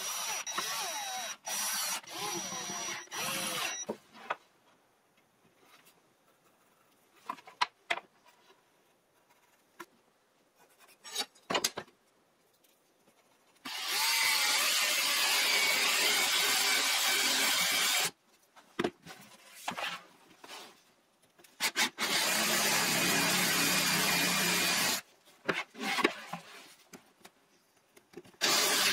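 Cordless drill-driver running screws through a metal bracket into wood in a few short bursts. After a quiet stretch with a few light knocks, the drill bores into MDF with a spade bit in two steady runs of about four and three seconds.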